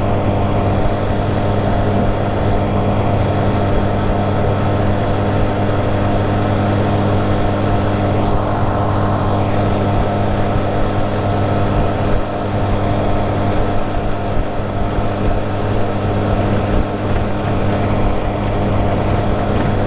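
A 20 hp Tohatsu four-stroke outboard motor running steadily at high speed, pushing a 14 ft jon boat near its 26 mph top speed, with an even engine drone over the rush of water. The level dips briefly about twelve seconds in.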